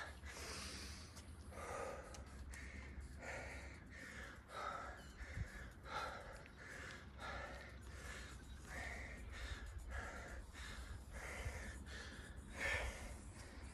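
A man breathing hard from exertion during a set of full-range squats: sharp, gasping in-and-out breaths about once a second, over a steady low rumble.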